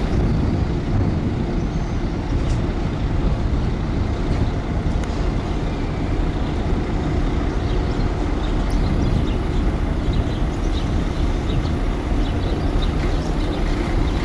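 The car ferry Wawel's diesel engines giving a steady low rumble as the ship sails past close by.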